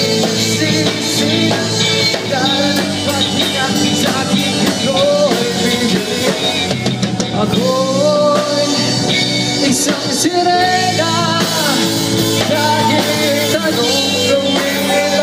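Live amateur pop-rock band playing through PA speakers: drum kit, electric guitars, bass and keyboard, with a man singing the melody into a microphone.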